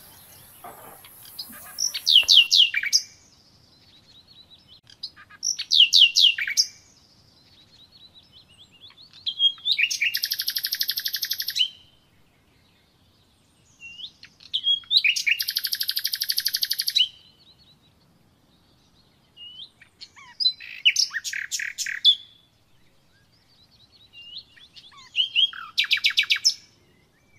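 A songbird singing: six short, high trilled phrases spaced about four to five seconds apart, the two in the middle longer and buzzier.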